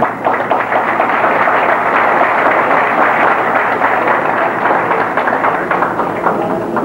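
Audience applauding: dense clapping from many hands, thinning out near the end.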